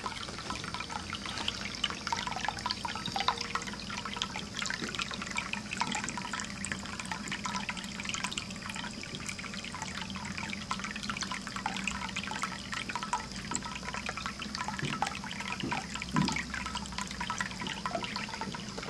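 Ceramic pet drinking fountain running: a stream of water from the spout trickling and splashing into the glazed bowl, with a steady patter of small drips.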